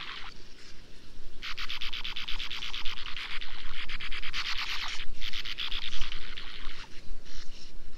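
Sand martin twittering: long runs of rapid, scratchy chattering notes, with a pause about a second in and short breaks near five and seven seconds.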